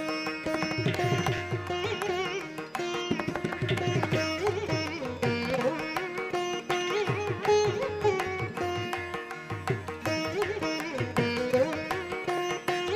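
Instrumental background music in Indian classical style: a gliding plucked-string melody over repeated low drum strokes.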